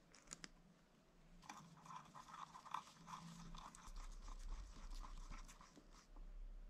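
Faint clicks and light scratching of small metal hardware being handled: the clutch master cylinder reservoir cap being set down and its screws turned in with a screwdriver.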